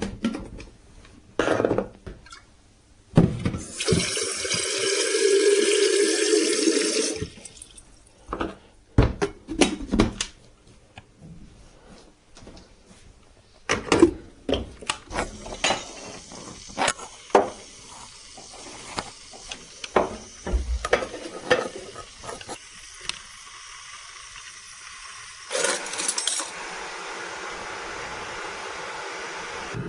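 Kitchen tap running for a few seconds, then a series of clinks and knocks of crockery and cutlery, as when mugs are handled and tea stirred. A low steady rumble sets in near the end.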